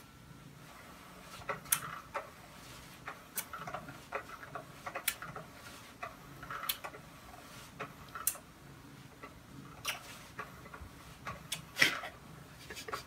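A man doing push-ups on carpet makes short, sharp clicks or smacks, a stronger one about every second and a half in time with the push-ups and fainter ones between, over a quiet room hum.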